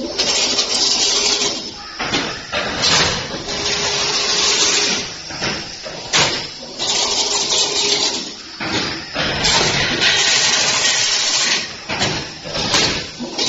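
Automatic single-wire chain link fence machine running, weaving wire into diamond mesh: a loud mechanical rush and clatter that surges and drops every second or two.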